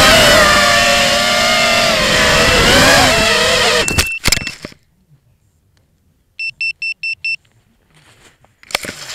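Eachine X220 racing quadcopter's brushless motors whining, their pitch rising and falling with the throttle, heard through the onboard camera. About four seconds in, the quad crashes into tall grass with a few clattering hits and the motors cut out. Near silence follows, then five short electronic beeps, with grass rustling against the camera near the end.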